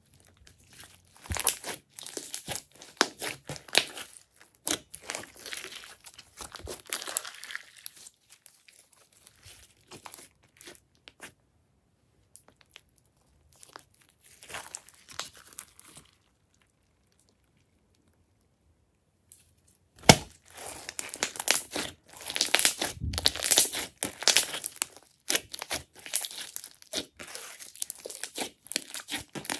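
Glossy slime being squeezed, stretched and pressed by hand, giving wet crackling and popping clicks as air pockets burst. The crackling dies away for several seconds around the middle, then returns louder and denser about two-thirds of the way in.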